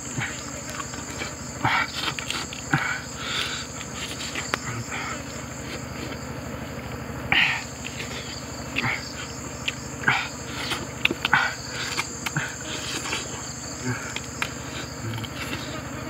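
Close-up eating sounds, chewing, lip smacks and short crisp crunches of roasted duck skin and bone, in irregular bursts with the loudest about halfway through. Behind them runs a steady, high-pitched insect chorus.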